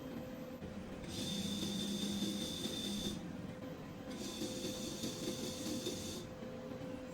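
Two hissing bursts of about two seconds each, a second apart, with a thin high whistle in each, over a steady machine hum.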